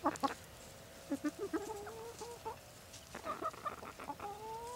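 A flock of hens making sweet little noises: soft clucks and quiet calls while they peck, with a longer rising call near the end.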